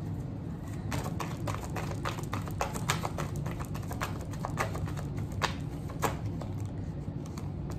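A deck of tarot cards being shuffled by hand, with irregular quick taps and flicks as the cards are slid and dropped against each other.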